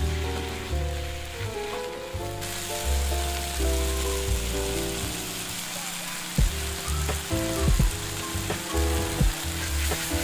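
Food frying and sizzling in a pan, the hiss starting about two seconds in, over background music. Several sharp clicks and knocks in the second half.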